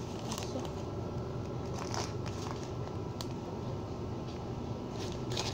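Steady low hum of a shop interior with scattered light crinkling rustles and clicks, a little busier near the end.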